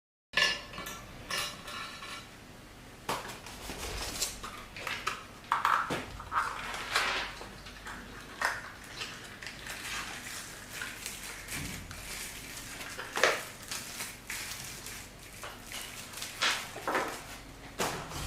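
Small metal and plastic accessories, including screwdrivers, being handled and set down: irregular clinks, clicks and rattles, with one sharper knock about 13 seconds in.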